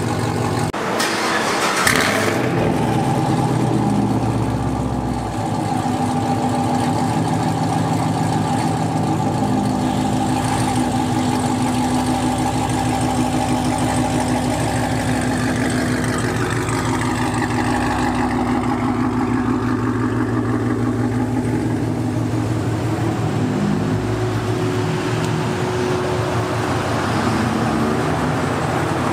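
2021 Camaro 1LE engine running through an AWE Track Edition axle-back exhaust on catless long-tube headers and an X-pipe with no resonators, idling steadily with a very deep exhaust note and a short, louder stretch about two seconds in.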